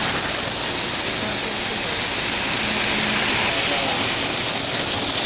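High-speed 5-axis CNC machining center milling aluminum: a steady, loud hiss of cutting and spray with faint steady tones beneath it.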